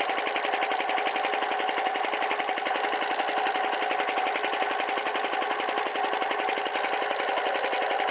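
Piston air compressor running steadily, its pump pulsing in a fast even rhythm under a steady whine.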